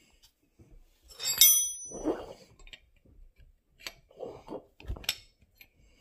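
An open-end wrench clinks, with a short metallic ring about a second in, then taps and clicks on a quick-release air fitting as it is tightened into the top plate of an air-ride bag.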